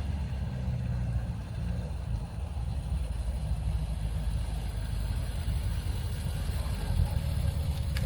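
Renault R10 Automatic running, a steady low rumble with no clear rise or fall.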